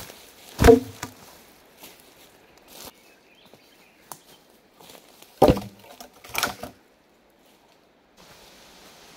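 Sawn wooden logs knocking as they are dropped onto a pile: three heavy wooden thuds, one about a second in and two close together past the middle. Faint ticks and rustling come between them.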